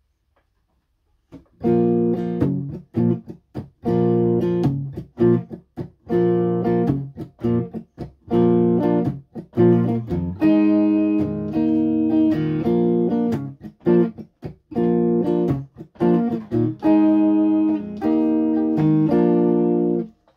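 Red semi-hollow-body electric guitar strumming chords in a rhythmic pattern. The chords are cut off short, leaving brief gaps between them. The playing starts about a second and a half in.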